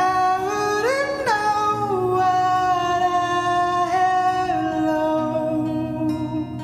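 A man singing a slow ballad melody in long held notes over soft, steady accompaniment; his voice rises about a second in, then steps down through the following notes.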